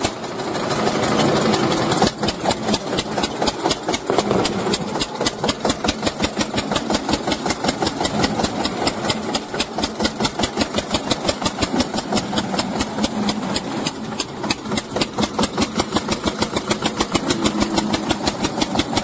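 Engine of a homemade mini tractor running under load as it pulls through deep mud, a steady rapid chugging of even pulses that swells briefly at the start.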